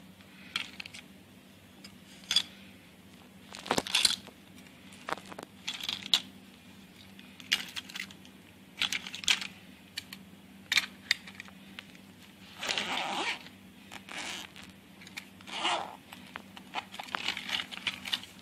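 Stationery being packed back into a fabric pencil case: irregular clicks, knocks and rustles as small plastic and metal items are handled and dropped in, with one longer rustle about two-thirds of the way through.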